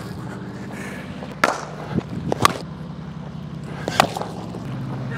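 Sharp cracks of a cricket bat striking a cricket ball in practice nets, three in all, the loudest about two and a half seconds in and the last as the batter plays a shot. The bat has small cracks that its user judges superficial, though he feels it no longer sounds the same.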